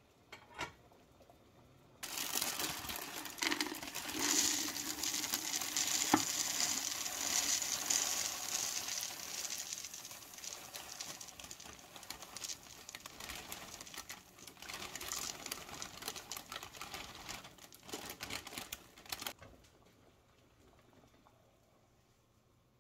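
Dry rolled oats pouring and rustling into a cardboard oat canister, with the bag crinkling: a continuous grainy hiss with small crackles. It starts abruptly about two seconds in, eases off partway through and stops sharply near the end.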